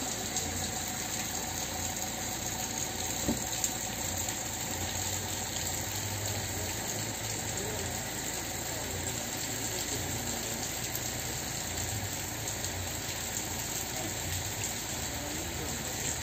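Steady rain falling on a wet paved square, an even hiss, with a low vehicle engine rumble underneath. Two small knocks about three seconds in.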